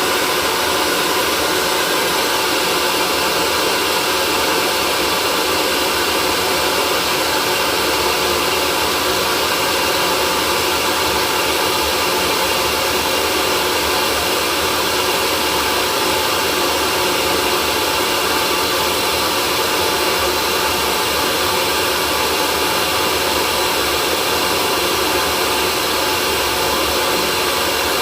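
Hair dryer running steadily: an unchanging rush of blown air with faint steady motor tones.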